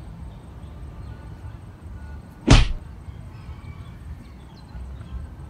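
A single sharp swish of a fishing rod whipped through the air as the angler strikes at a bite, about halfway through, over a low background rumble.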